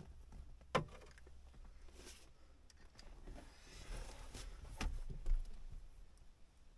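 Faint handling noises of hand work on dash wiring: a few sharp clicks and knocks of a tool and wire ends, with light rustling between them.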